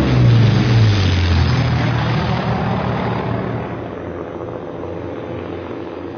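Light propeller airplane engine flying past, its pitch dropping in the first second or so as it goes by, then droning on and fading away.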